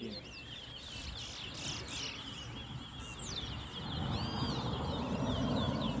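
Caged chestnut-bellied seed finches (twa-twa) singing in a song contest: a continuous run of quick, sweet whistled notes, many sliding up and down in pitch. A low background rumble grows louder about four seconds in.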